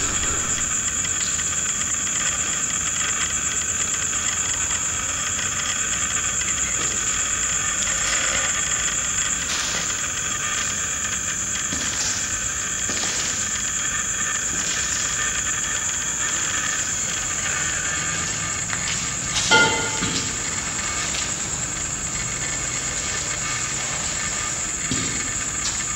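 Steady, shrill high-pitched drone made of several held tones, with one brief sharp sound about twenty seconds in.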